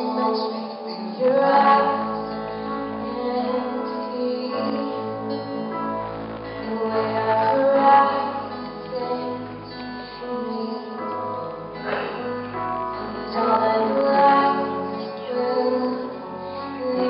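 A woman singing a song live, accompanied by acoustic guitar, upright double bass and grand piano, with deep bass notes coming in about a second and a half in.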